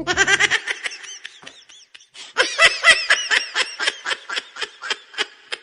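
Laughing sound effect: a person laughing in quick repeated bursts, with a short lull about two seconds in before a louder, faster run of laughter.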